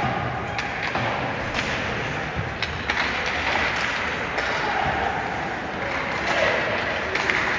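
Ice hockey game in an arena: scattered sharp clacks and knocks of sticks, puck and boards over a steady wash of arena noise and spectator voices.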